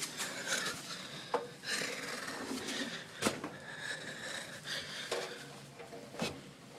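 Wet laundry being pulled out of a washer and put into a tumble dryer drum: cloth rustling and handling noise, with a few sharp knocks against the machines.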